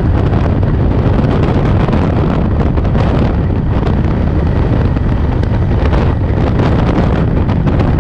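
Wind rushing over the microphone of a camera on a motorcycle cruising at road speed, loud and steady, mixed with the bike's engine and road noise underneath.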